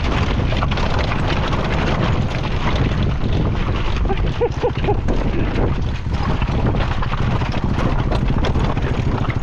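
Off-road motorcycle engine running, with wind noise on the microphone.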